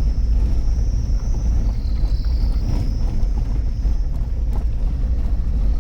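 Suzuki Jimny driving on a rough dirt road, heard from inside the cabin: a steady low engine and road rumble with a few faint knocks, and a steady high shrill above it.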